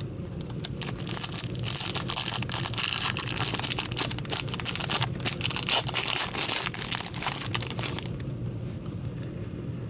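Plastic wrapping on a pack of trading cards crinkling and tearing as it is opened, a dense crackle that stops about eight seconds in.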